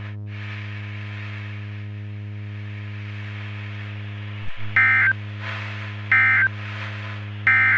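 Emergency Alert System SAME end-of-message tones: three short digital data bursts about a second apart, starting about halfway through, marking the end of the alert message. Under them runs a steady low electrical hum on the radio audio, which cuts out for an instant just before the first burst.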